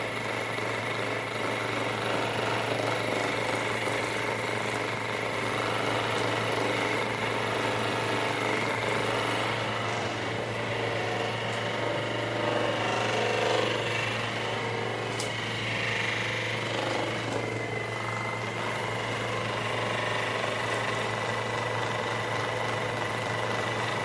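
Handheld percussion massage gun running steadily, its head hammering against the neck and shoulder muscles with a continuous buzzing hum that swells a little around the middle.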